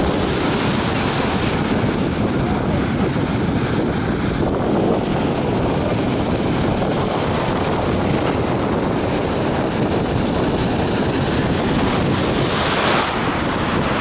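Storm surf breaking and washing up a pebble beach, with strong wind buffeting the microphone. A louder wash of surf comes near the end.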